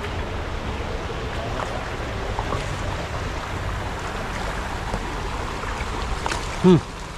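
Wind rumbling on the microphone over shallow flowing river water, with a landing net being swept and dipped through the water. Near the end a brief, loud pitched sound stands out.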